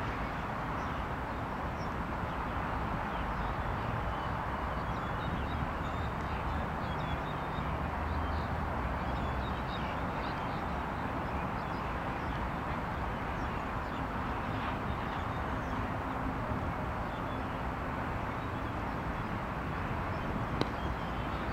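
Steady outdoor background noise with a low hum and faint high chirps, and one short sharp click near the end.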